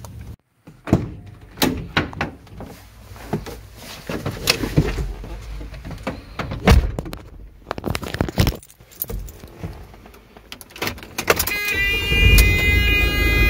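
Keys jangling and scattered knocks and clicks from handling in a Ford Transit van's cab. Near the end the van's engine starts and keeps running with a steady low rumble and a high whine.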